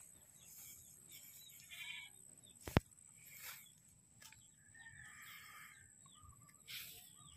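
Goats bleating faintly now and then, with one sharp click a little under three seconds in.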